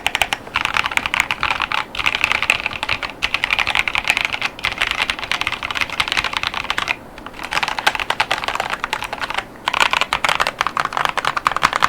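Fast typing on a HYTE Keeb TKL mechanical keyboard with Kailh Clione Limacina tactile switches (48 gf) and PBT OEM-profile keycaps: a dense stream of keystroke clacks, with two short pauses about seven and nine and a half seconds in.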